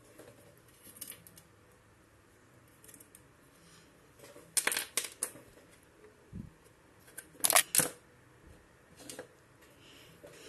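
Sharp plastic clicks from an action figure being handled and its hands pulled off: three quick clicks about halfway through, a soft low knock, then a louder cluster of clicks a couple of seconds later.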